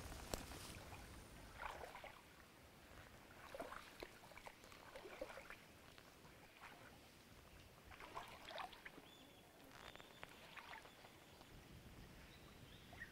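Faint sloshing and swishing of legs wading slowly through shallow swamp water, a few separate splashes spread through. A thin steady high whine joins in for the last few seconds.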